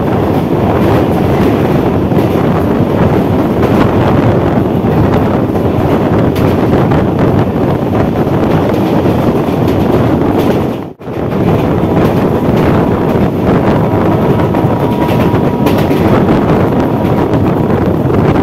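Three-phase MEMU electric train running at speed, its rumble and rail noise heard through heavy wind buffeting the microphone from an open door or window. The sound cuts out for a moment about eleven seconds in.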